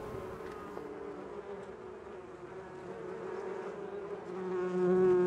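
Honeybees buzzing in flight: a wavering drone that swells louder near the end.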